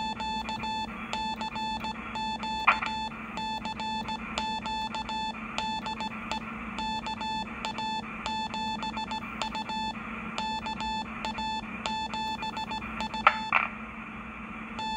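Morse code sent by hand on a Morse key at a Heathkit amateur radio station, heard as a keyed mid-pitched beep spelling out dots and dashes in groups with short gaps between them: a call for a contact that nobody answers. A steady low hum runs underneath, and there are two short clicks, one about two and a half seconds in and one near the end.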